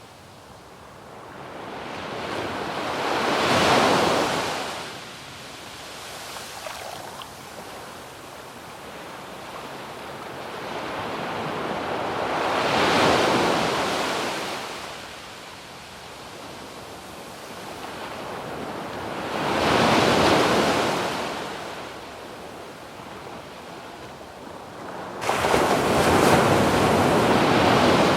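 Waves breaking and washing up a sandy beach: four surges of rushing surf that swell and fade several seconds apart, the last coming in suddenly near the end.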